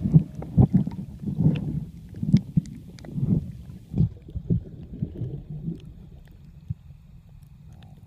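Muffled underwater sound of water moving around a submerged camera: a low, uneven rumble with irregular knocks, growing quieter in the second half.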